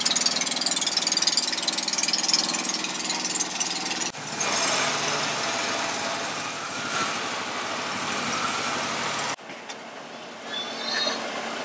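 Small motorboat engines running. The sound changes abruptly about four seconds in and again near the end, where it gets quieter.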